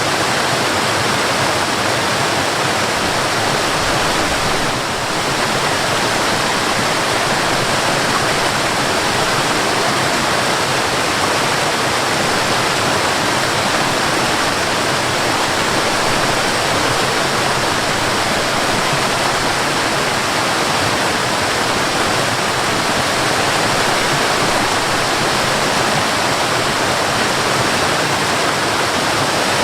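Mountain waterfall, water falling and rushing in a steady, even roar, with a brief slight drop in level about five seconds in.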